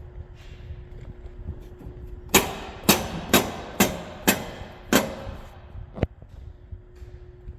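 Hammer striking steel: six ringing metal-on-metal blows about half a second apart, followed a second later by a single sharp click.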